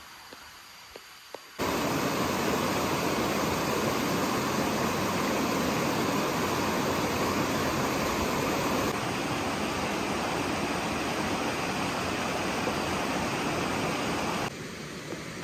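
Shallow rocky stream rushing over boulders in small rapids: a steady, loud rush of water that starts abruptly about a second and a half in and eases to a softer flow near the end.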